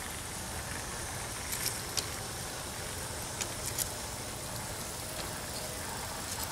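Two G-scale model diesel locomotives running past on brass track: a steady drone from their motors and gearing, with sharp clicks of the wheels crossing rail joints, the clicks coming in pairs a fraction of a second apart.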